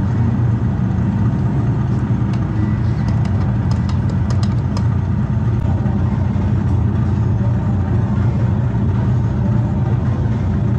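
Electric go-kart driving on the track, heard from the driver's seat: a steady, loud low rumble of the moving kart, with a few faint high ticks a few seconds in.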